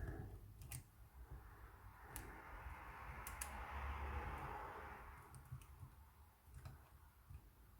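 Faint, scattered clicks of a hook pick and tension wrench working the wafers in a cabinet wafer lock's keyway. A soft hiss swells and fades in the middle.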